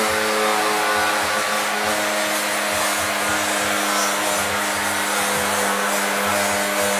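Hand-held gas torch flame hissing steadily as it heats an aluminium alloy wheel rim before straightening, with a steady hum of low tones underneath.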